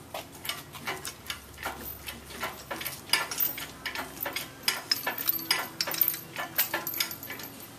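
Steel lifting chain rattling and clinking against an engine hoist, with irregular sharp metal clicks, as the chain is hooked up to lift a V8 engine.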